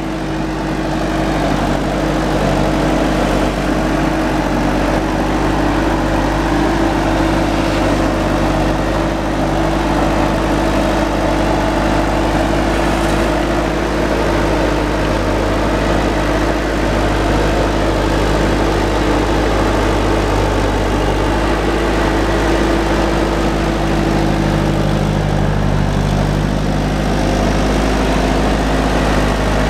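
Bobcat A300 skid-steer loader's turbo diesel engine running steadily as the machine drives along carrying a heavy log on its forks.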